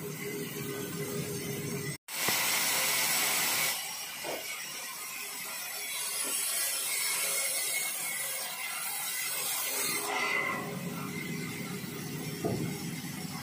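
Sawmill band saw running with a steady hiss. It cuts wood loudly for a couple of seconds after a brief break early on, then runs lighter while the next log is brought up to the blade, and grows heavier again near the end.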